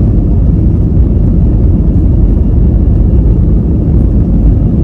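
Steady, loud airliner cabin noise: an even, deep rumble of engines and airflow with no distinct tones.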